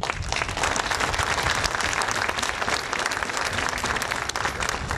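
A crowd applauding: many hands clapping together, starting abruptly.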